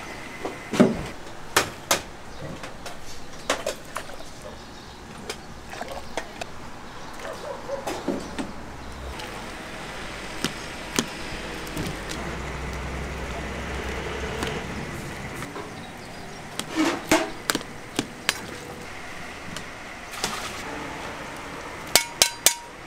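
Kitchen clatter at a soup stall: scattered sharp knocks and clinks, bunched in a few quick strikes about a second in, again past the middle, and three fast ones near the end, with a low rumble through the middle.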